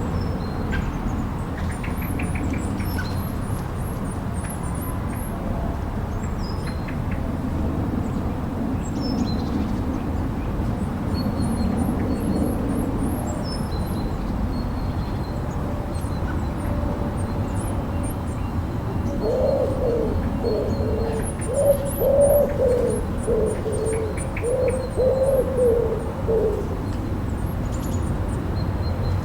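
Steady blizzard wind with an owl hooting in a run of wavering calls in the second half, the loudest sound here. Faint high bird chirps come and go.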